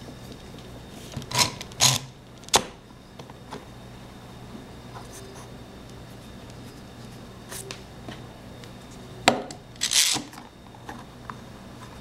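F-style bar clamps being fitted and screwed down onto a wooden caul: scattered clacks and scrapes of the clamps' metal parts against wood, loudest about two seconds in and again near ten seconds in, over a low steady hum.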